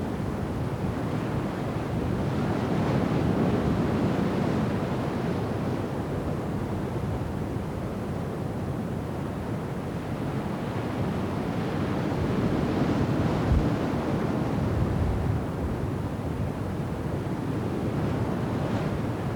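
Storm wind blowing on the microphone over the rush of rough sea and breaking waves. It is a steady roar that swells louder twice.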